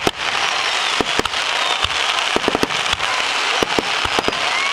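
Fireworks going off at a festival display: a dense, continuous crackle with many sharp cracks and pops, several a second.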